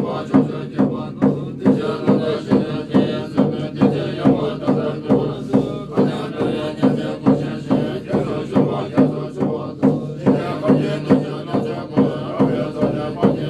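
Buddhist monks chanting prayers in low, sustained voices over a drum beaten steadily about twice a second.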